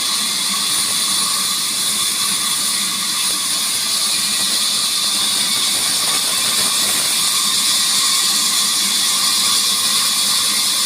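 Sawmill machinery running steadily: a continuous, high-pitched mechanical whir with a faint steady hum underneath, with no breaks or separate knocks.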